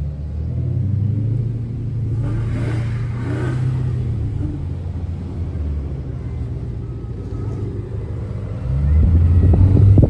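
V8 muscle-car exhausts rumbling at idle, with an engine revving louder about a second before the end.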